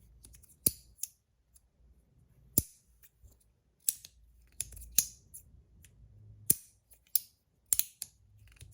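Magnetic slider fidget being slid back and forth, its plates snapping into place with sharp clicks, about ten at uneven intervals; the magnets are very strong, so each snap is crisp.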